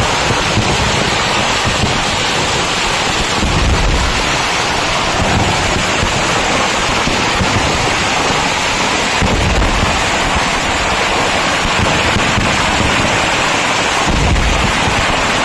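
Traditional Kerala temple fireworks (nadan vedikkettu) going off in a dense continuous barrage, the finale run of firecrackers: loud unbroken crackle and rumble with a few heavier low booms.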